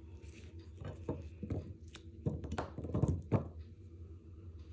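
About half a dozen light knocks and taps of a honesuki boning knife and cut potato pieces on a wooden cutting board, spread between about one and three and a half seconds in, over a low steady hum.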